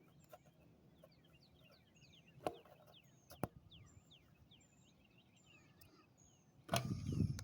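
Small birds chirping and calling over a faint outdoor background. There are two sharp clicks about two and a half and three and a half seconds in, and a brief burst of noise near the end, the loudest sound here.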